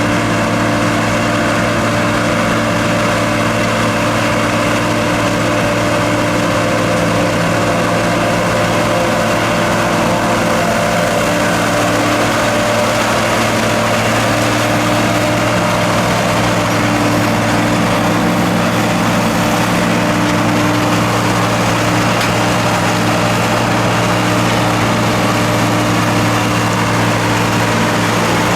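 John Deere 4440 tractor's turbocharged six-cylinder diesel running steadily while powering a Sperry New Holland 782 forage harvester chopping corn.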